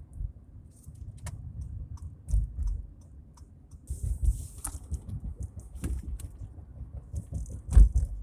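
2014 Acura MDX SH-AWD clunking: irregular low knocks and thumps mixed with sharper clicks and rattles, with the loudest clunk near the end. The owner reports this severe clunking together with vibration at all speeds.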